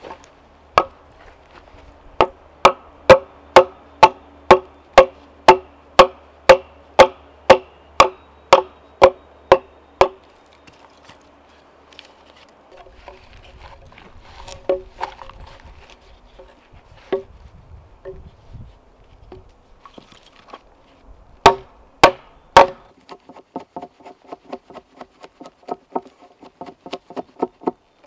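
A hand tool striking wood in a steady rhythm, about two blows a second for some eight seconds, each blow with a short ringing note. After a pause come three more hard blows, then a run of quicker, lighter taps.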